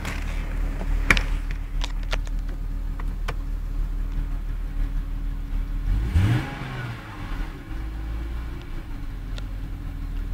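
BMW E39 M Sport's straight-six engine with a Remus exhaust, idling steadily while it warms up after a cold start, with one brief rev that rises and falls about six seconds in. A few sharp clicks come in the first few seconds.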